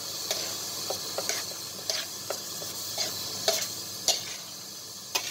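Metal slotted spatula stirring minced pork and vegetables in a metal wok: a string of short, irregular scrapes and taps of metal on the pan, over a steady hiss.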